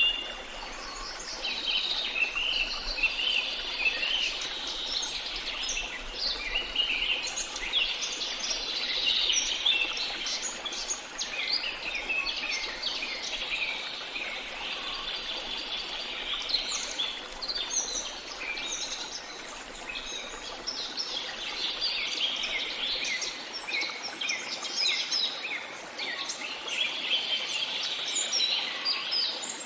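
A dense chorus of many songbirds chirping and trilling together without a break, over a faint even hiss.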